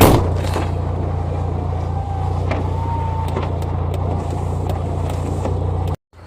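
Audi TT's 1.8-litre turbocharged four-cylinder engine idling steadily while warming up on a cold start, with a sharp thump at the very start. The sound cuts off suddenly near the end.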